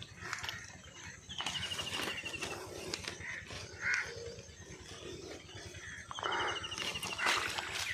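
Outdoor ambience with birds calling, including a quick descending trill of rapid notes heard twice, a few seconds apart.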